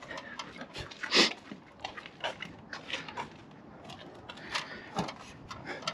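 Scattered knocks, rattles and rustles as a fiberglass step ladder with aluminium steps is carried and set down, with one louder sharp sound about a second in.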